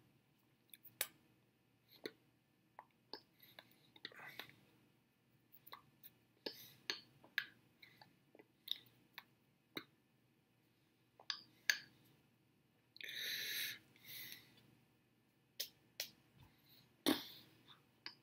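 Faint, scattered clicks and small mouth and hand noises close to the microphone. A breathy hiss lasts about a second and a half about two-thirds of the way through, and a single low thump comes near the end.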